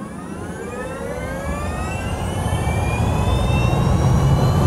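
Logo-intro sound effect: an engine-like whine of several tones rising steadily in pitch over a low rumble, growing louder throughout.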